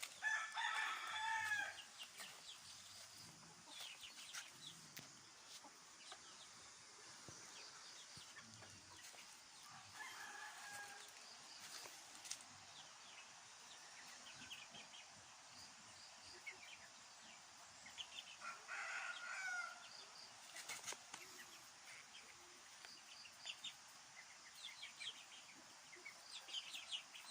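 Heritage-breed rooster crowing three times, the loudest crow right at the start, the others about ten and eighteen seconds in, with short clucks and chirps from the flock in between.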